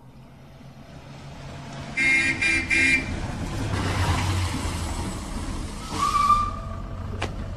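Car driving up with its engine running and getting louder. Its horn gives two short toots about two seconds in. About six seconds in there is a short squeal, and a couple of sharp clicks come near the end.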